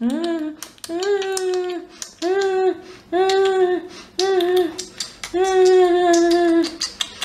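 A high, childlike voice makes about six short held 'mmm' drinking sounds, with small mouth clicks between them, as pretend gulping for a doll being fed its bottle.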